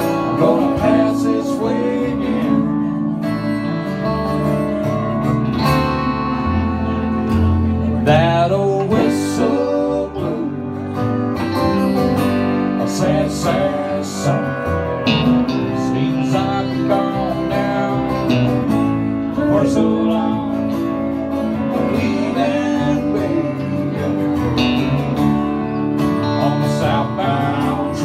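A live band's instrumental break on electric and acoustic guitars. A Stratocaster-style electric guitar plays a lead line with bent notes over strummed acoustic guitar and a steady low backing.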